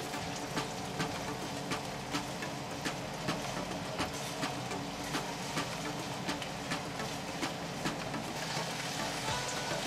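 A spatula scraping and tapping against a nonstick wok about twice a second as sliced shallots, garlic and red chilies sizzle in oil. The sizzle gets louder near the end.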